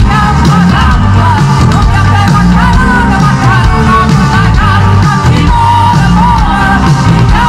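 A woman singing lead over a live band, her voice sliding and wavering between notes, with a full bass and percussion backing.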